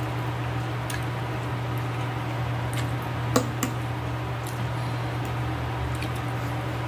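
A metal fork clicking and scraping against a ceramic plate as stewed meat and vegetables are cut and picked up: a handful of light, separate clicks, the sharpest a little past the middle, over a steady low hum.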